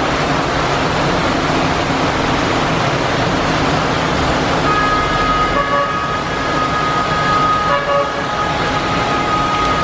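Steady rush of floodwater pouring down a street. About halfway in, a vehicle horn starts and holds one long steady note, with two short beeps over it.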